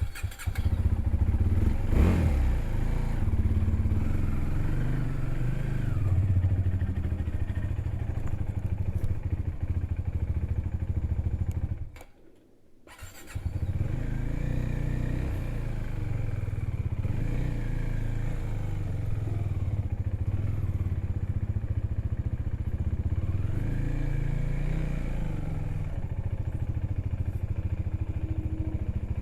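Motorcycle engine running as the bike pulls away and rides on, with the sound dropping out briefly about twelve seconds in.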